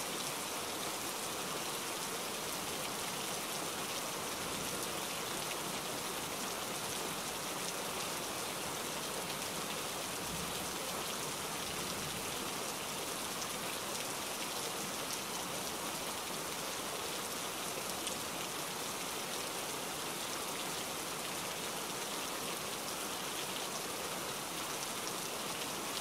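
Steady, even rushing of water, like heavy rain or a fast flood stream, unbroken throughout.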